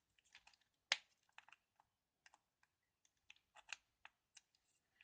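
Faint, scattered small plastic clicks and taps from handling a mechanical keyboard, with one sharper click about a second in.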